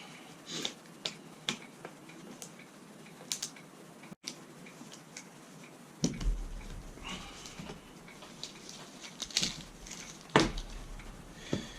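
Irregular light clicks and knocks of metal parts and hand tools being handled, with a low hum starting about halfway through.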